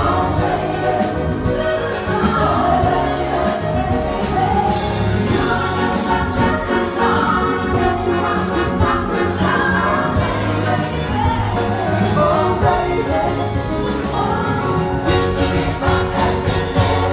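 Big band playing with several voices singing together, continuous and full.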